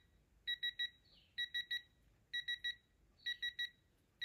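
Digital torque adapter on a ratchet beeping as a flywheel bolt is tightened: short high-pitched beeps in quick threes, about one set a second, four times.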